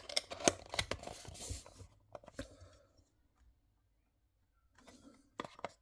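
Small die-cast model cars being handled on a table: a run of light clicks, taps and rustling, a pause of near silence midway, then a few more clicks near the end.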